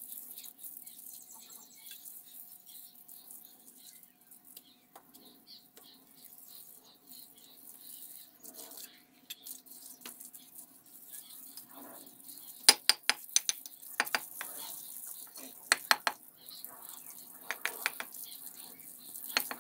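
Bricklayer's steel trowel scraping and spreading mortar on a brick wall, then sharp clinking taps as bricks are knocked down into the mortar bed. The taps come in quick clusters from about two-thirds of the way in.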